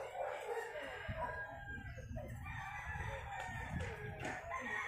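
Chickens clucking, with a rooster crowing.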